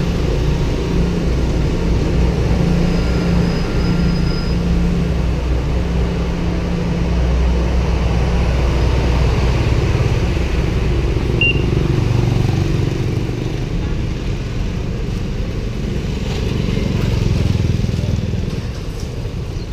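Wind rushing over the microphone of a camera riding on a moving bicycle, a steady low rumble, mixed with street traffic.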